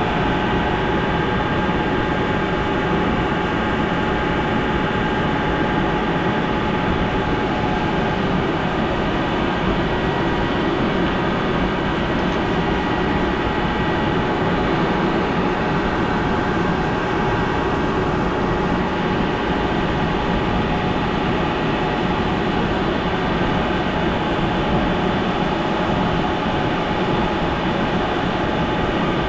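Workshop machinery running steadily: an even mechanical drone with several steady whining tones over it, unchanged throughout.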